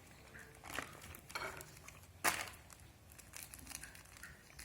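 Plastic instant-noodle seasoning sachets crinkling as they are handled and opened, in short crackly bursts with one sharper crackle about two seconds in.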